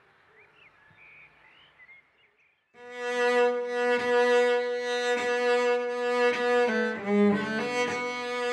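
Faint background for almost three seconds, then a cello comes in loud on one held note, bowed again and again in even strokes. Near the end comes a quick run of changing notes, and then it settles back on the held note.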